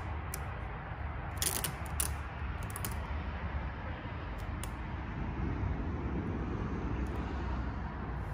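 Adhesive tint film being handled and smoothed onto a tail-light lens by fingertips, giving short crackles, clustered about a second and a half and three seconds in, over a steady low hum.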